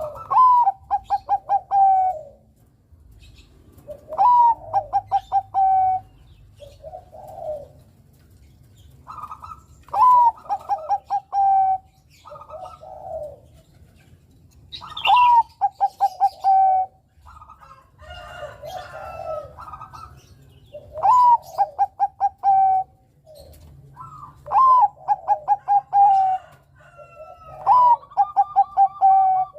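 Zebra dove (Bangkok-type perkutut) singing its cooing song over and over. Each phrase opens with a rising note, breaks into a quick run of short staccato coos and ends on a held lower note, and it comes back every few seconds, with shorter coos between.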